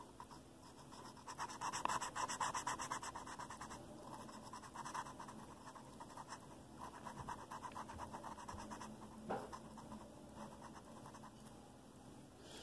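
Artist's Loft triangle marker scrubbing on journal paper in quick back-and-forth strokes. It comes in several faint spells of a couple of seconds each as an area is filled in with colour.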